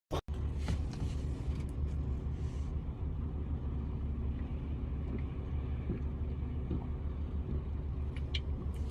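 Steady low rumble, with a few faint clicks near the end.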